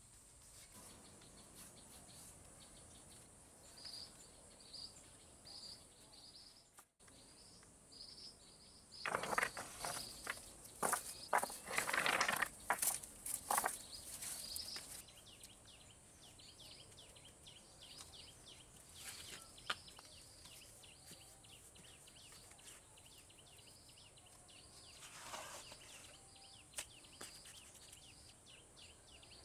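Rocks clattering and knocking against each other as they are picked from a stone pile and dropped into a woven basket, a dense run of sharp knocks lasting several seconds. Under it runs a steady high insect drone, with a high chirp repeating about twice a second in the first several seconds.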